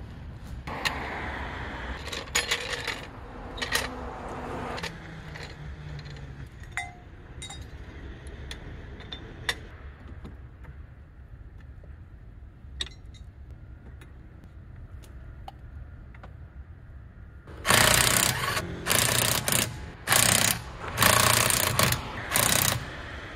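Impact wrench run in several short bursts, each a second or less, in the last few seconds, spinning wheel fasteners during a tyre change. Before that, scattered clicks and knocks of tools being handled.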